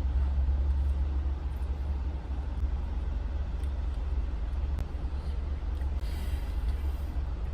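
Steady low rumble of a car heard from inside the cabin, with no other clear event.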